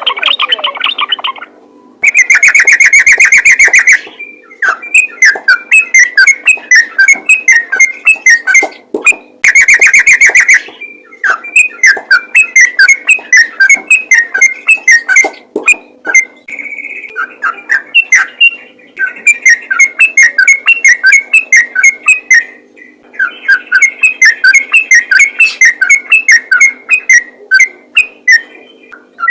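Sooty-headed bulbul (trucukan) calling in quick runs of repeated chirps, with two loud, rapid chattering bursts, one about two seconds in and one about ten seconds in.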